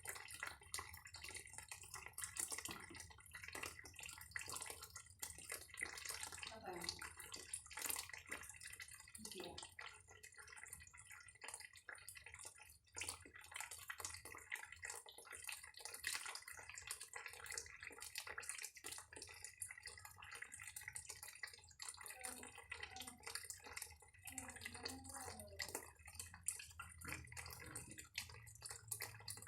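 Running water splashing and dripping, with many small irregular splashes and drips.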